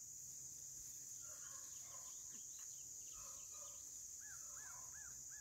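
Faint, steady chorus of crickets trilling in a grassy field. Near the end, a run of faint, evenly repeated high chirps comes in, about three a second.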